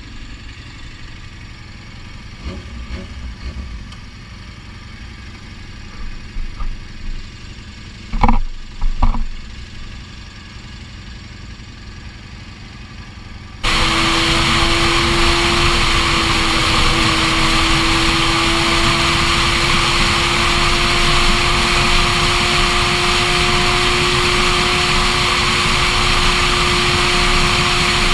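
Motorcycle engine idling low, with a few short throttle blips. After an abrupt cut it is riding at highway speed: heavy wind rush over the camera, with the engine's steady cruising tone beneath.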